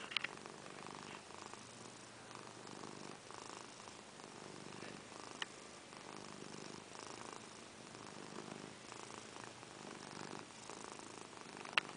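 Domestic cat purring steadily and faintly, the purr swelling and easing with each breath as it kneads a blanket. Two brief clicks, one just after the start and one about halfway through.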